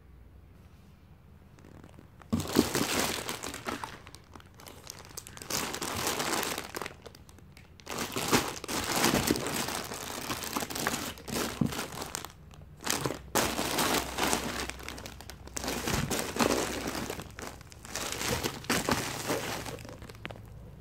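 Clear plastic bags and bubble wrap around plush dolls crinkling as they are handled, in repeated bursts with short pauses, starting about two seconds in.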